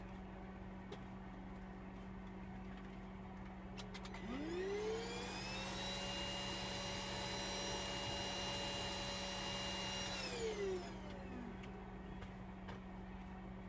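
A small electric motor spins up with a rising whine, runs at a steady pitch for about four seconds, then winds down. A few light clicks come just before it starts, over a steady low hum.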